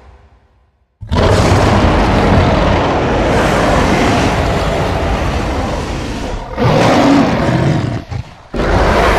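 Monster roar sound effects: a long roar of about five seconds starting about a second in, a shorter one after it, and another beginning near the end.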